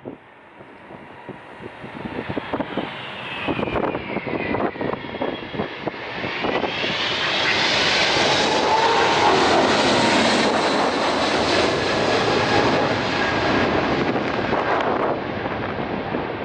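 Airliner passing close by, its engine noise building over several seconds to a loud peak, with whining tones gliding in pitch, then easing slightly near the end.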